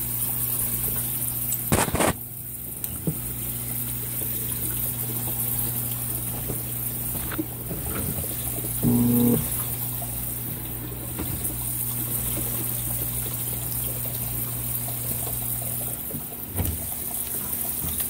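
Consul 16 kg top-load washing machine agitating a load of jeans in water: a steady motor hum under water churning and splashing, with a sharp knock about two seconds in and another near the end.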